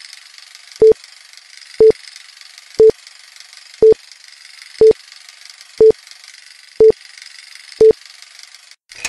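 Film-leader countdown sound effect: a short beep once a second, eight beeps in all, over a steady crackly hiss that cuts off near the end.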